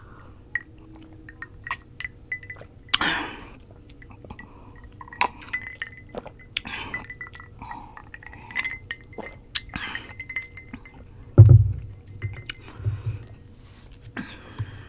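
Close-up eating sounds: a metal knife and fork clicking and clinking, with light glass clinks from a glass mug. Short rustling noises come in between, and one heavy thump about eleven and a half seconds in.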